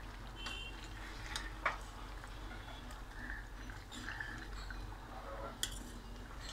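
Metal spoon stirring chicken and tomatoes in a karahi: soft scraping with a few sharp clinks of the spoon against the pan, the loudest a little before the end.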